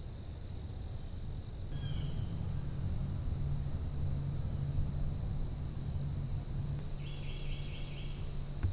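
Woodland ambience: a steady high-pitched trill over a low rumble, with a short run of quick chirps about seven seconds in.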